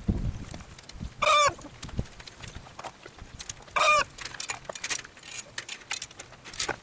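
A chicken calling twice: two short, loud squawks about two and a half seconds apart, over faint scattered clicks and rustling.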